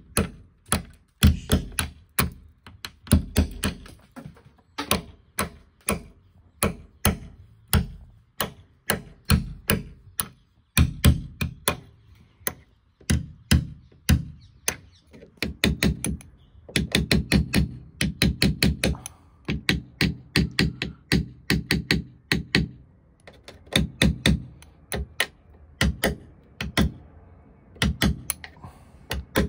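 Repeated hammer blows on the sheet-steel door pillar of a 1955 Austin A30, opening out the trafficator slot. The blows come in quick runs of several strikes with short pauses between them.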